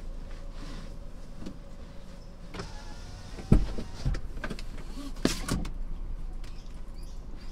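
Car cabin noise while driving, a steady low hum, with a few knocks and rustles; the loudest is a sharp thump about three and a half seconds in.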